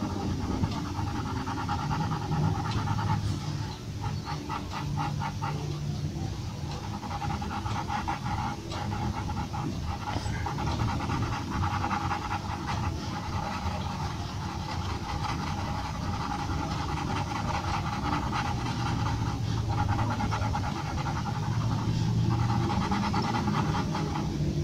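Graphite pencil shading on paper: rapid, rhythmic back-and-forth scratching strokes, with short pauses when the pencil lifts.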